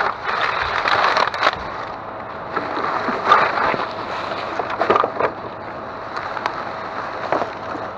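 Rustling and clattering of rummaging through trash, loose plastic coffee pods and bags knocking and sliding against one another, with frequent sharp clicks.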